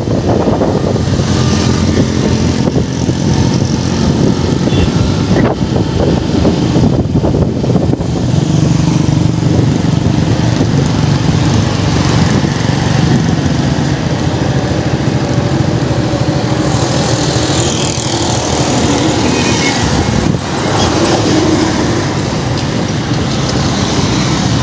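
Suzuki Gixxer SF 150 motorcycle's single-cylinder engine running while the bike is ridden along a road, under steady wind rush on a helmet-mounted phone microphone. The loudness drops briefly near the end.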